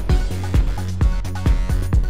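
Background electronic dance music with a steady four-on-the-floor kick drum, about two beats a second, over a bass line.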